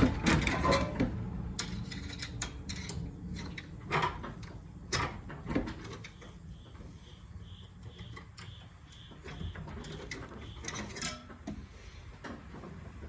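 Scattered mechanical clicks and knocks, loudest in the first half, with a faint low hum fading over the first few seconds and a short run of faint high blips in the middle. The tractor engine is not heard cranking or running.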